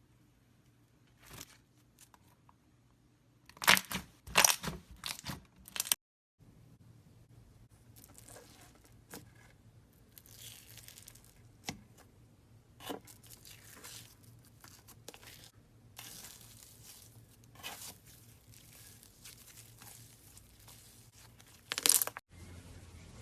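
Slime being pressed and squeezed by hand, giving bursts of crackling and crunching, loudest a few seconds in and again near the end, with softer crackly squishing between. The sound cuts off abruptly twice where one clip gives way to the next.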